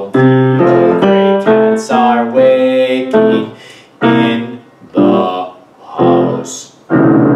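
Grand piano chords: a quick run of chords about two a second, then single chords struck about once a second, each left to ring and die away.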